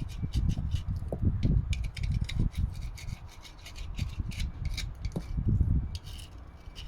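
Irregular hand rubbing and scraping strokes, with crisp little clicks, as dirt and rust are cleaned off a BMW drive shaft around the ABS reluctor ring seat.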